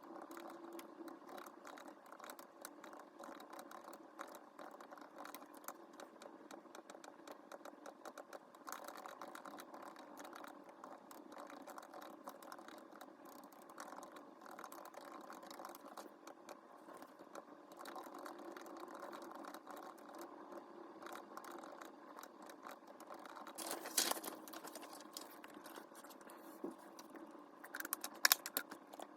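Many small clicks, taps and light rattles of small objects being handled, over a faint steady hum, with two louder clatters about 24 and 28 seconds in.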